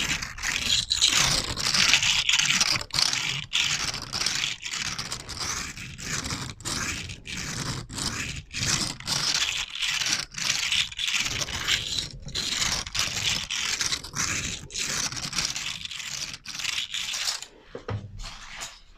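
ASMR scraping trigger: repeated scraping strokes, about two a second, stopping shortly before the end.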